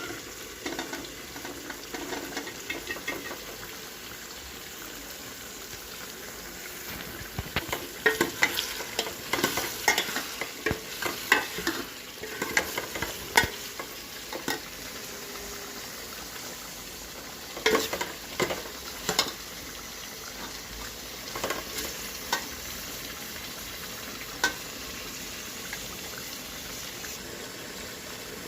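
Food sizzling in a hot pan with a steady hiss, stirred with a utensil that clicks and scrapes against the pan in bursts of strokes, busiest in the middle.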